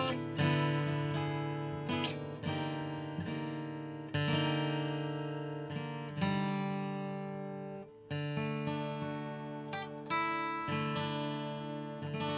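Martin HD-28V dreadnought acoustic guitar, spruce top and rosewood back and sides, played solo: chords struck every second or two and left to ring out, with a brief break a little before the eighth second.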